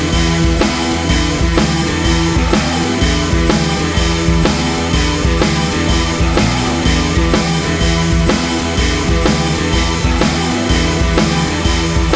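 Rock music soundtrack with a steady, driving drum beat.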